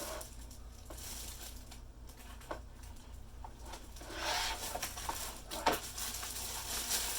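Packaging and a keyboard being handled: scattered clicks and taps, with a louder rustle about four seconds in.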